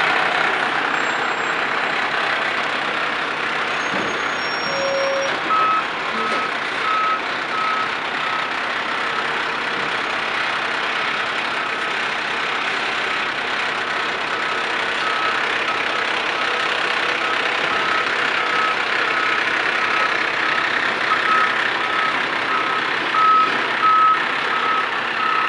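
Heavy diesel dump trucks running steadily while their dump bodies are raised, with a truck's backup alarm beeping at about two beeps a second, starting about six seconds in.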